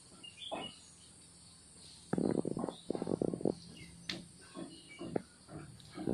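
Steady high-pitched insect drone. About two seconds in comes a quick run of knocks and clatter lasting over a second, followed by scattered clicks.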